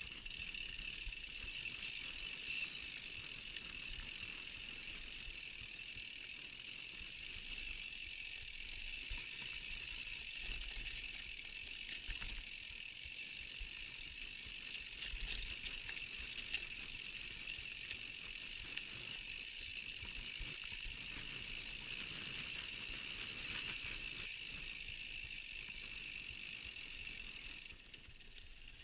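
Mountain bike riding over a rutted, rocky dirt track, heard through a handlebar-mounted camera: a steady hiss with scattered rattles, knocks and low thumps from the bumps. The level drops sharply about a second before the end.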